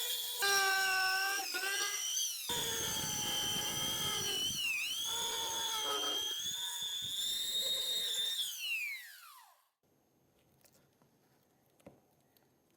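High-speed rotary tool running with a high whine whose pitch dips briefly several times as it bites into the work, then switched off about nine seconds in and spinning down with a falling whine. Faint handling noise and a small click follow.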